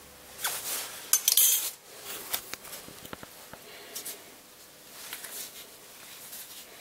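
Light metallic clinks and scrapes of metal tools handled at a lathe, loudest in the first two seconds, then fainter scattered ticks.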